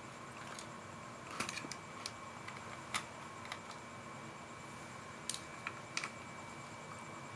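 Scattered light clicks and taps of a toy drone's plastic body being handled and taken apart: a short cluster about a second and a half in, then a few single clicks.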